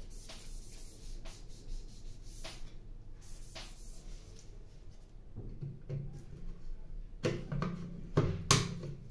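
Soft rubbing and scattered light clicks of plastic parts as a laser toner cartridge and its black roller are wiped and handled, with a few louder knocks near the end.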